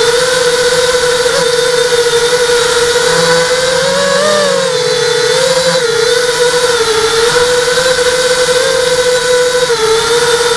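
ZMR hexacopter's six brushless motors and propellers whining steadily in flight, heard from the camera on board; the pitch wavers slightly with throttle and rises briefly about four seconds in.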